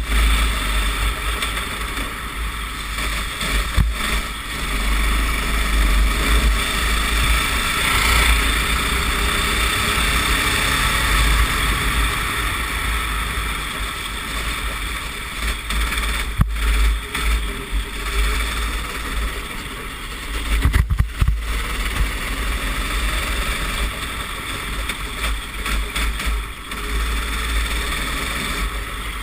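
Racing kart engine running at speed on a wet track, heard through an onboard camera microphone with heavy wind buffeting; a few sharp knocks stand out, around 4, 16 and 21 seconds in.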